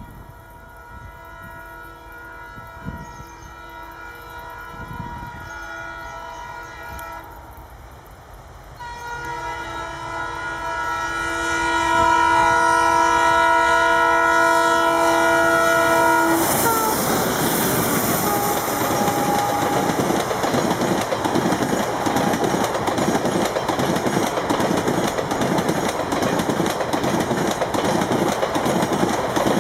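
Twin WDM-2 ALCO diesel locomotives sounding their horn, a fainter blast and then a long, loud one as they close in, which stops as they rush past at about 110 km/h. The locomotives and the long express rake of coaches then go by with loud, rhythmic wheel clatter over the rail joints.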